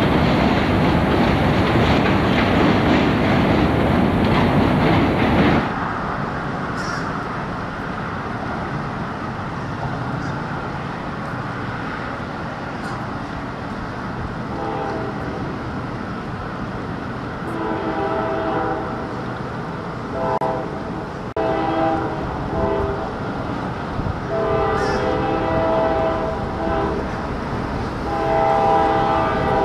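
Diesel freight train passing, wheels on the rails with a steady rumble, the opening seconds dense and harsh. In the second half the locomotive's air horn sounds a series of chord blasts, each lasting one to three seconds.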